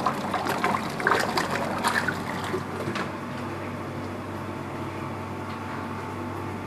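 Pastomaster 120 HE pasteurizer running, its agitator stirring the gelato mix as it heats: liquid sloshing and splashing for the first three seconds or so, then a steady machine hum.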